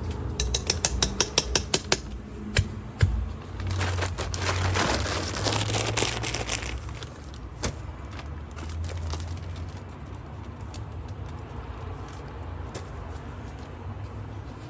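Handling noise: a quick run of clicks and taps in the first couple of seconds, then a few seconds of rustling, followed by quieter fumbling over a steady low rumble.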